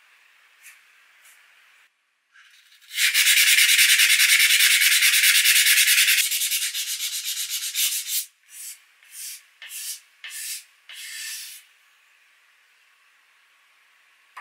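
Sandpaper rubbed by hand over a Douglas-fir board, sanding hardened wood filler flush: a fast back-and-forth scratching run starting about three seconds in, then about six slower separate strokes before it stops.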